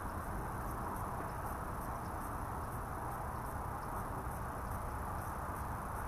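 Steady outdoor insect chorus, a dense even din, with a faint high ticking repeating two or three times a second.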